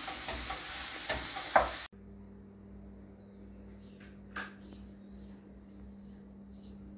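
Food sizzling in a frying pan while being stirred, with clicks of the utensil, cutting off abruptly about two seconds in. A quiet steady hum follows, with faint repeated high chirps and a single click.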